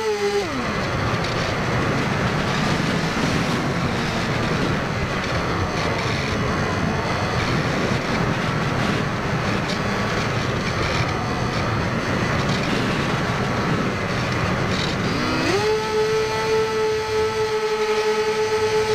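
Electric motor and propeller of a Firebird Stratos RC airplane, heard from its onboard camera. A steady high whine falls away as the throttle is cut about half a second in, then wind rushes past the airframe during the unpowered glide. About three seconds before the end, the whine rises back to full pitch as the throttle is opened again.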